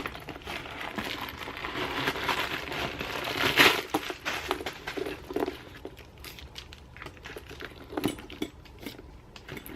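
Packaging crinkling and rustling in irregular handling noise as a bag is unwrapped, with louder rustles about a third of the way in and again near the end.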